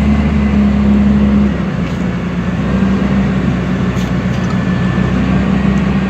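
A heavy machine's engine running steadily with a low hum. About one and a half seconds in, its deepest part drops away, and it then runs on evenly.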